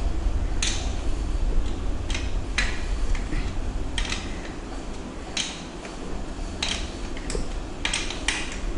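Metallic clicks at uneven intervals, roughly one a second, from a mountain bike's rear derailleur being worked by hand, over a low rumble.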